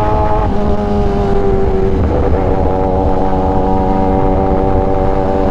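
Kawasaki Ninja ZX-10R's inline-four engine running at a steady cruise, heard from the rider's seat with wind rumble on the microphone. The engine note shifts about half a second in and again around two seconds in, then holds steady.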